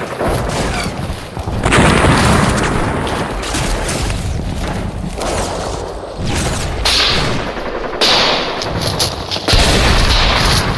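Battle sound effects: heavy, continuous gunfire with machine-gun bursts and the booms of explosions. It grows louder about two seconds in and swells again near the end.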